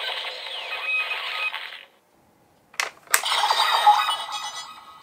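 Toy Kamen Rider transformation belt audio. The Eden Driver's electronic transformation effects end about two seconds in. After a short silence, two sharp plastic clicks come from working the next belt, and its electronic chime-like effects follow and fade away.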